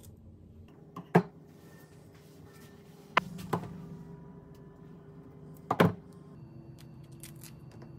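Kitchen food-prep clatter: a kitchen knife and dishes knocking against a cutting board in a handful of short sharp knocks, the loudest about a second in and a double knock near the end, over a steady low hum.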